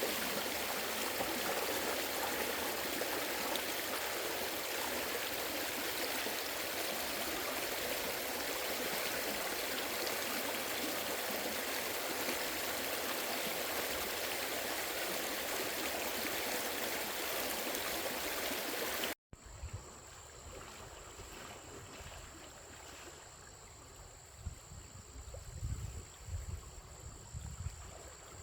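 Steady rushing water that cuts off abruptly about two-thirds of the way in. Quieter background follows, with a faint high whine and a few low thumps near the end.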